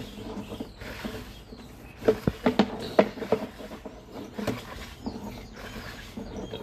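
Drain inspection camera being worked along a drain pipe: irregular sharp clicks and knocks, with a quick cluster about two to three and a half seconds in, over a steady low hum.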